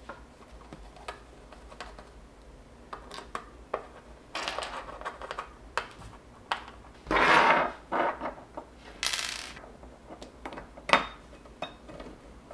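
Hand-driving small machine screws with a Phillips screwdriver to fix steel mounting brackets to a battery's metal case: scattered light metallic clicks and a few short scrapes of the screwdriver and hardware, loudest about seven seconds in, with a sharp click near the end.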